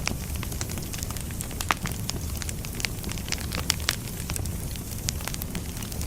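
Firewood burning, a steady low rumble of flames with frequent irregular crackles and pops from the burning logs.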